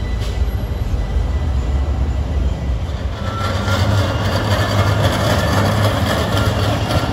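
A DC Streetcar light-rail car passing close by, its running noise swelling from about three seconds in with a thin, steady high whine on top, over a low rumble of street traffic.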